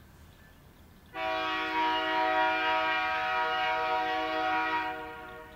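Diesel locomotive air horn sounding one long blast of about four seconds, several notes held together as a chord, starting suddenly about a second in: the warning for a road crossing.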